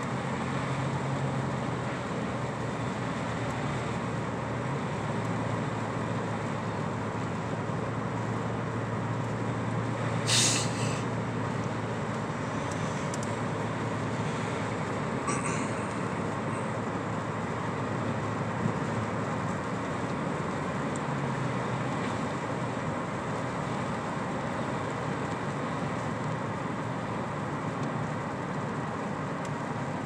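Steady road and engine noise inside a car's cabin as it drives along a snow-covered highway, with a low hum underneath. A brief sharp noise comes about ten seconds in, and a fainter one around fifteen seconds.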